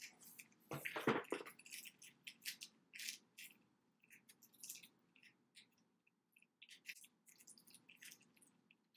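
Faint, irregular soft scratches and little clicks, a few a second, from a small eyeshadow brush being worked along the lower lash line to set gel eyeliner with black shadow. There is one louder, fuller sound about a second in.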